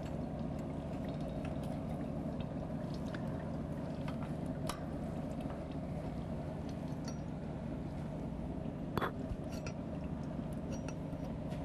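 Steady low background hum with a few faint metal clicks and taps as a gasket is pried into place between steel pipe flanges and a bolt is handled.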